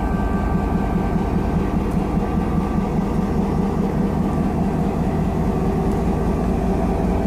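Diesel locomotive engine running steadily: a deep, even rumble with a steady hum.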